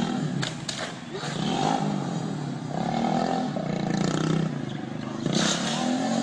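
Motorcycle engine running and revving, its pitch rising and falling in several surges, with a few sharp clicks about half a second in.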